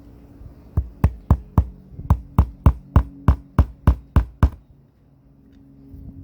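Small jeweler's hammer tapping a nail into a pre-drilled hole in a wooden board: about a dozen quick, even strikes, roughly three a second, stopping about four and a half seconds in.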